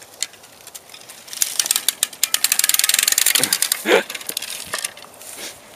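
Bicycle freewheel ratchet ticking rapidly as the bike coasts, starting about a second and a half in and stopping about four seconds in.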